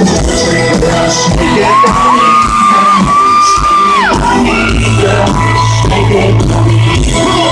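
Live country-rock concert music played loud through a PA, band and vocals together. About two seconds in a high voice holds one long note for a couple of seconds, then slides down, over yells and whoops from the crowd.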